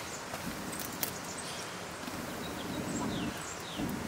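A person blowing on the embers of a wood fire in a stone hearth to kindle it: about three long blows with short pauses for breath between.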